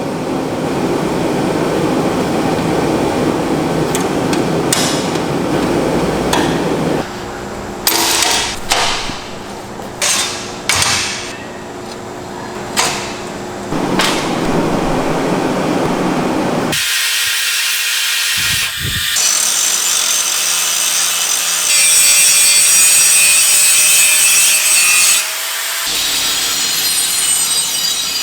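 A run of bladesmithing workshop sounds in quick succession. First comes a steady rasping, then several sharp knocks, and from just past the middle a loud, steady high hiss that stops suddenly near the end.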